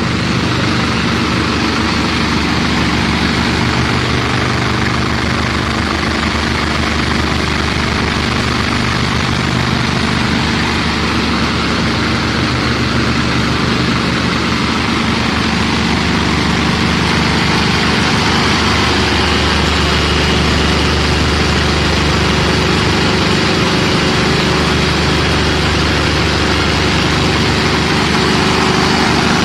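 Shale shaker running, its electric vibrator motors and vibrating screen deck making a loud, steady mechanical hum as drilling mud passes over the screens.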